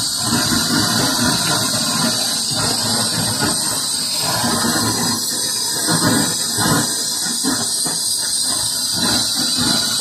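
Hi-Cook butane canister torch burning with a steady hiss while its flame heats a thin aluminium refrigerator evaporator, ready for brazing a leak with aluminium filler wire.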